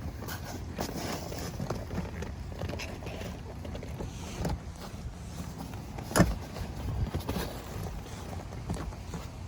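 Handling noises of a car floor mat being fitted and tucked into place: a low rumble with scattered light clicks and rustles, and one sharp knock about six seconds in.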